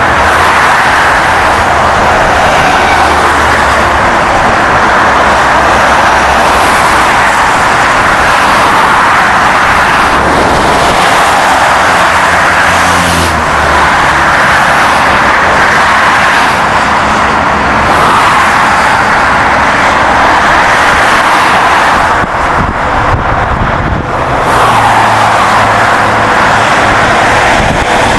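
A vehicle on the move: steady, loud road and wind noise with a low engine drone underneath, easing off briefly about two-thirds of the way through.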